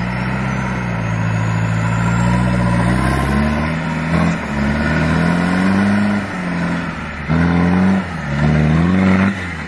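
Off-road 4x4's engine revving under load as it climbs a steep, muddy bank, the revs rising and falling with the throttle and dipping twice near the end.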